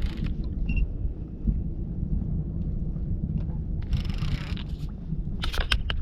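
Steady low wind rumble on the microphone of a drifting fishing boat. A brief hiss about four seconds in, then a few sharp clicks near the end.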